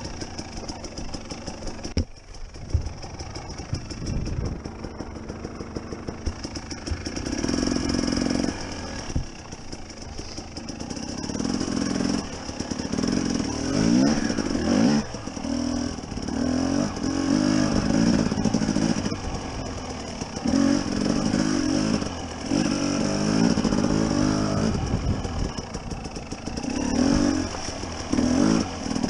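Two-stroke engine of a Husqvarna TE250 enduro motorcycle being ridden off-road: a quieter, rattly low-throttle running for the first several seconds, then repeated bursts of throttle, revving up and dropping back every second or two.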